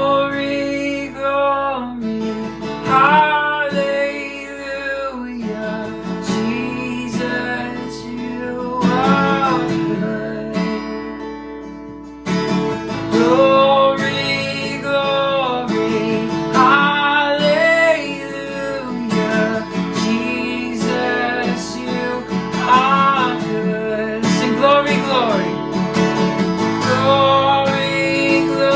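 Worship music: strummed acoustic guitar with a sung melody over it. The music grows softer, then comes back louder about halfway through.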